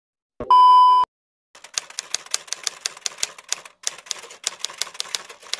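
A short, loud electronic beep over a glitch effect, then a typewriter sound effect: a quick run of keystroke clacks, about five a second, as on-screen text types itself out.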